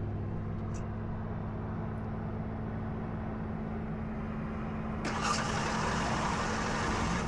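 A vehicle engine idling steadily with a low, even hum. About five seconds in, a broad rushing noise rises over it and holds to the end.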